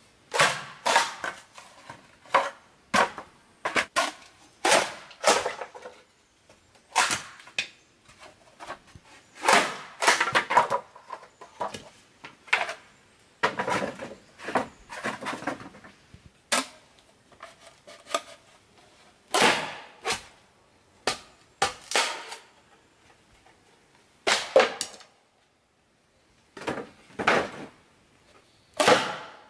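Bamboo knocking and clattering as poles and split bamboo boards are handled and laid down: an irregular string of sharp knocks in clusters, with a short pause near the end.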